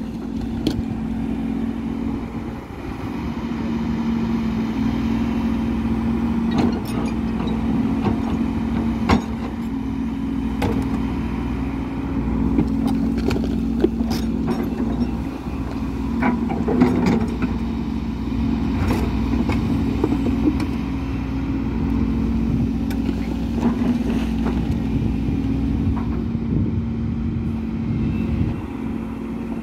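Hidromek HMK 140LC excavator's diesel engine running steadily under hydraulic load as it digs, with scattered short knocks from the bucket working among soil and rocks.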